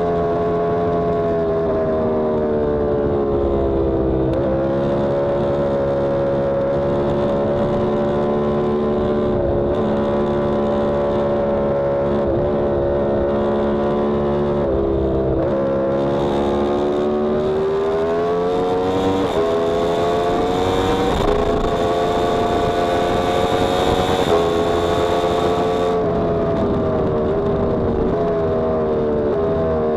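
Yamaha R1M inline-four engine under way on a race track, heard from a camera on the bike. Its pitch rises and falls with the throttle, with three quick drops in pitch around the middle, and a rush of wind noise rises over it in the second half before cutting off near the end.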